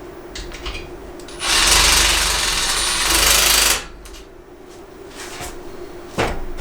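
A handheld power tool running in one burst of about two and a half seconds, with a fast rattling pulse, as a fastener is driven during rack assembly; a single sharp knock follows near the end.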